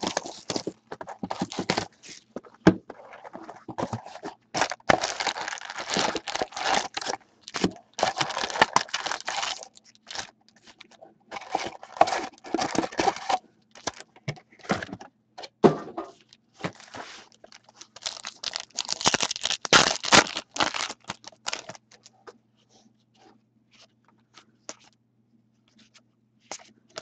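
Plastic wrapping on a hockey-card box and its foil card packs being torn and crinkled in irregular bursts. About 22 seconds in the crinkling stops, leaving only a few small clicks from cards being handled.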